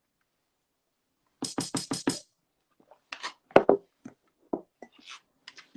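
Percussive beat, like a drum machine: after a moment of silence, a quick run of five sharp hits, then scattered single hits of varying weight.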